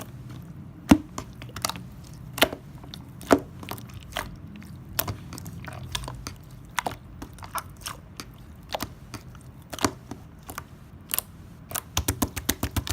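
White Elmer's-glue slime being pressed and squished by hand, giving off irregular crisp clicks and pops, with a quick run of clicks near the end.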